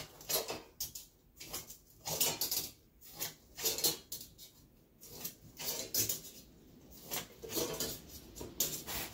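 Tin snips cutting a series of relief notches into the edge of an aluminium Zee Bar carpet trim, so the bar can flex round an internal curve. It is heard as short metallic snips, one every second or so.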